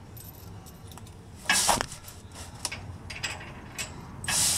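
Small metal clicks and clinks of a washer and nut being handled up against a carriage bolt, with two short, louder noises, one about a second and a half in and one near the end.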